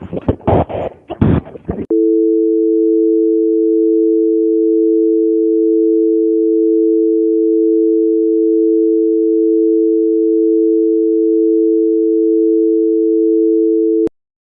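Telephone dial tone: a steady, continuous two-note hum of the North American kind, cut off abruptly with a click just before the end. It is preceded by about two seconds of choppy, phone-quality voice-like sound.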